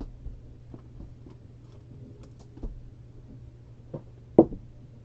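Trading cards and packaging being handled on a table: scattered light clicks and taps, then one sharp, louder knock about four and a half seconds in, over a steady low hum.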